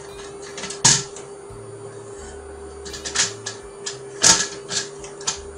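Plastic parts of a Brother HL-2130 laser printer knocking and clicking as a grey plastic assembly is fitted onto the chassis by hand: a few sharp knocks, loudest about a second in and again about four seconds in, with lighter clicks between.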